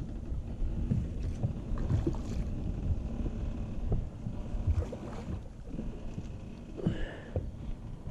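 Wind rumbling on the camera microphone over choppy water lapping against a fishing boat, with scattered small knocks.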